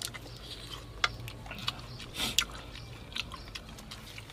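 Mouth sounds of people chewing and biting grilled softshell turtle meat, with irregular sharp clicks and smacks.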